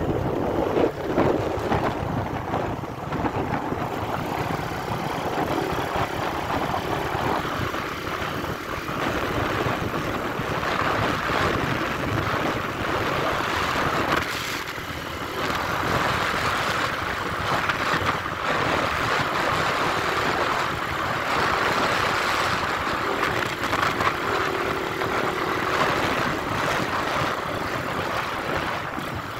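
Motorcycle engine running under way on the ride, mixed with a steady rush of wind and road noise on the microphone.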